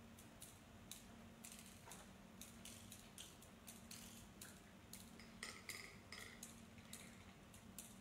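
Near silence with faint, scattered clicks and light metallic clinks, some ringing briefly in the second half, over a steady low hum.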